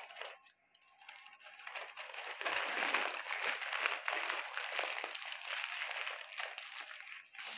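Baking parchment crinkling and rustling as hands fold it closed into a parcel around a fish. The crackling starts about a second in and stops shortly before the end.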